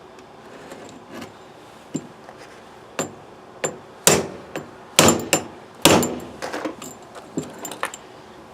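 Repeated sharp taps on the end of a screwdriver seated in a stuck carburetor screw, about ten irregular strikes with the loudest about five to six seconds in. The impact shock is meant to break the seized screw loose.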